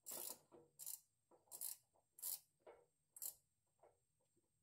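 Faint socket wrench ratcheting in short bursts of clicks, one every half second to a second, as a 12 mm bolt holding the spare tire carrier is worked loose. The bursts thin out near the end.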